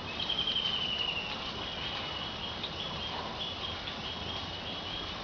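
Insect chirping: a rapid high trill that falls slightly in pitch over about a second, then short high chirps repeating several times a second over a faint steady high tone.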